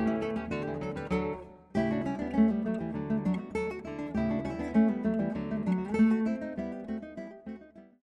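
Instrumental music with strummed strings. It drops away briefly a little under two seconds in, comes back, and fades out at the end.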